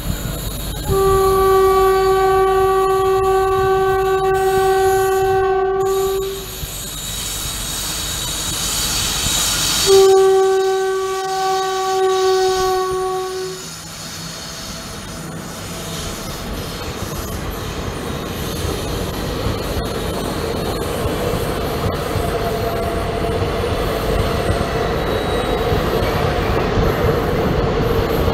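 Locomotive horn of an express train as it approaches on the adjacent line, sounding two long blasts of about five and four seconds. Then the steady rumble and rapid wheel clatter of its coaches as they pass close by.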